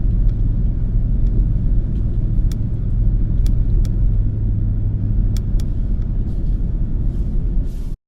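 Truck driving: a steady, loud, low engine and road rumble with a few faint sharp clicks. It cuts off abruptly just before the end.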